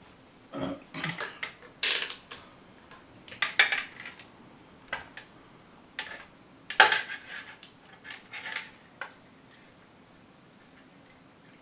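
Hard plastic parts of a dismantled Henry Micro vacuum cleaner and test-probe leads being handled: scattered clicks, knocks and rattles, the loudest about two and seven seconds in. Near the end come a few faint, short, high beeps.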